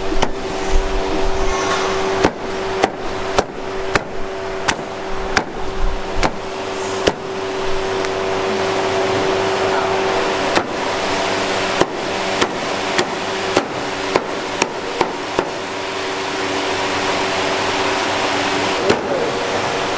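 Heavy meat cleaver chopping roast pork on a thick round wooden chopping block: sharp chops in irregular runs of about two a second, over a steady hum.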